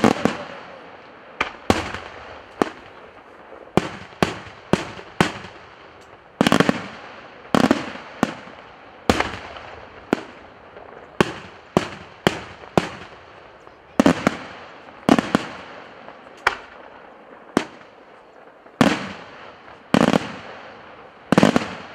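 Aerial fireworks shells bursting overhead in a rapid, irregular string of sharp bangs, more than one a second and often in quick pairs. Each bang trails off in a short echo.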